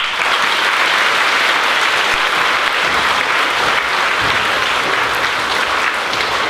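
A large audience, mostly children, applauding loudly and steadily. The clapping starts all at once.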